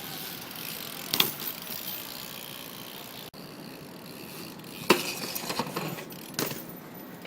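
BMX bike being ridden: the rear hub's ratchet ticking over a steady hiss of tyres, with three sharp knocks of landings or pegs striking, about one, five and six and a half seconds in, the middle one the loudest.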